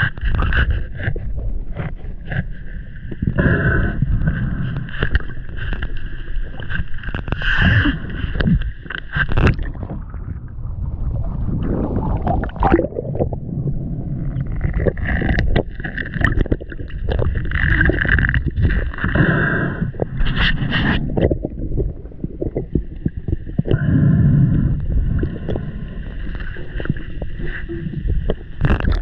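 Water sloshing and bubbling around a submerged action camera, full of small knocks and clicks as a spearfisher moves through the water. A steady high hum comes and goes in stretches of several seconds.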